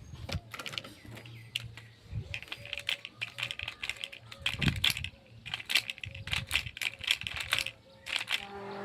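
Quick runs of light clicks and clatter from small plastic miniature kitchen-toy pieces being handled and set down.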